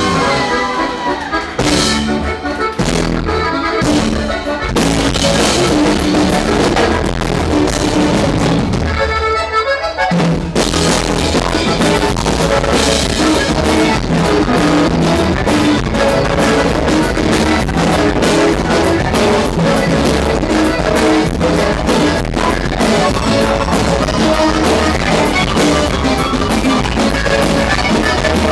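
Live norteño band music with saxophone, acoustic guitar and drum kit. The opening is stop-start, and the full band settles into a steady beat about ten seconds in.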